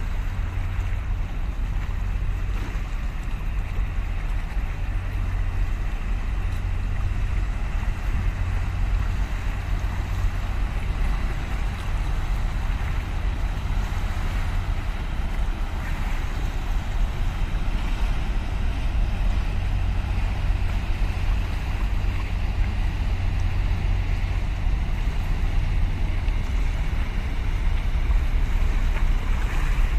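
Steady low rumble of a large container ship under way, passing close, mixed with wind and water noise; it grows slightly louder toward the end.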